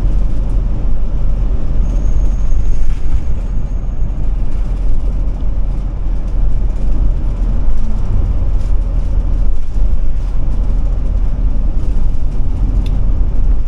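Ford E450 motorhome driving at highway speed, heard from inside the cab: a loud, steady low rumble of its V10 engine and road noise, with a few faint clicks.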